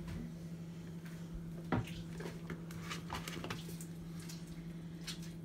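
Steady low hum with scattered soft clicks and taps of kitchen handling as oil is poured into a bowl of spices, with one sharper click about two seconds in.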